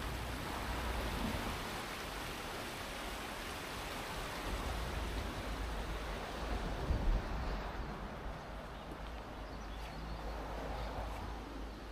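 Wind blowing outdoors and buffeting the microphone: a steady rushing with a stronger gust about seven seconds in.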